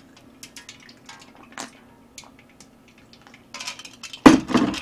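Quiet slurping and sipping of liquid drunk straight from a stainless steel pan held to the mouth, with small wet clicks. About four seconds in, a sudden loud clatter as the metal pan is set back down.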